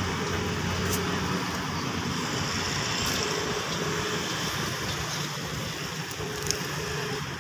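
Steady outdoor background noise, an even rushing haze with a faint low hum underneath, and a single light click about six and a half seconds in.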